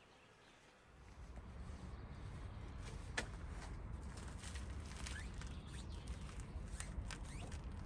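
Steady low rumble of wind on the microphone, starting about a second in, with a few light, sharp clicks of a screwdriver working the drain screw on the Yamaha outboard's lower unit.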